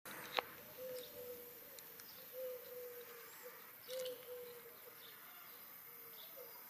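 Outdoor ambience: a bird gives a repeated low call, short notes in pairs every second or two, over steady high insect chirring. There is one sharp click near the start.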